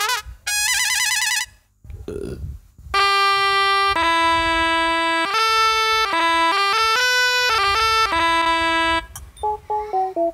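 Korg Kross 2 synthesizer keyboard playing preset voices: a wavering lead tone with strong vibrato for the first second or so, then a slow melody of held notes, then a few short descending notes near the end.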